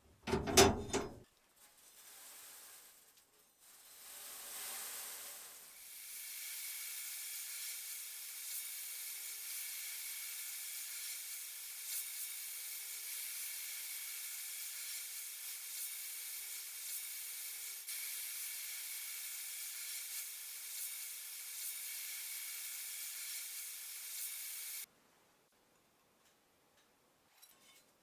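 Sandblast cabinet gun blasting a steel cleaver blade with abrasive: a couple of short blasts, then a steady hiss from about six seconds in that cuts off suddenly near the end. A sharp knock at the start as the cleaver is set down on the cabinet's grate.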